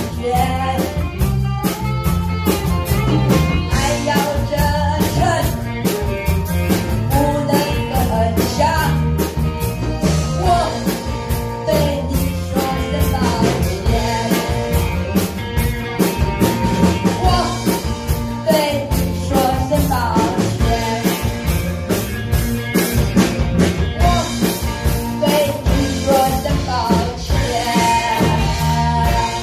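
Live band music: a woman sings lead into a microphone over a drum kit and electric guitar.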